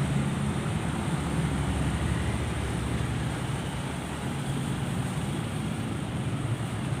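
Steady road-traffic noise, with a vehicle engine's low hum that fades over the first few seconds.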